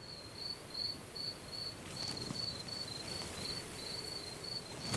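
Crickets chirping steadily, about three short chirps a second at one high pitch, over a faint steady hiss.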